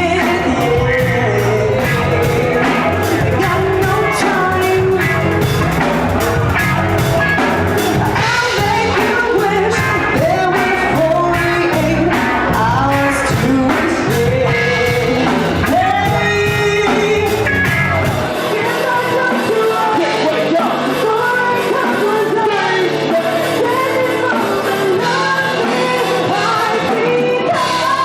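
Rock band playing a song with a lead singer and drums. About eighteen seconds in, the deep bass drops out and the drumming thins, leaving the voice over lighter accompaniment.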